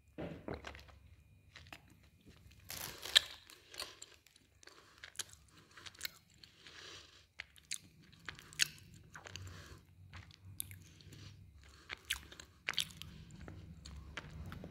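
Close-up chewing and crunching of brittle black slate pencil pieces in the mouth: irregular sharp crunches between quieter chewing, the sharpest about three seconds in.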